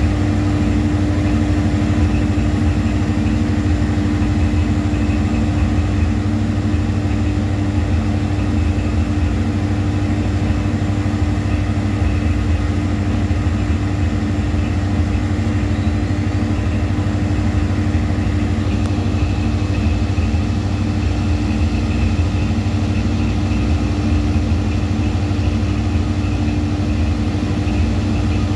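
Natural gas electric generator running steadily under a 300 kW load: a loud, constant low rumble with a steady hum on top.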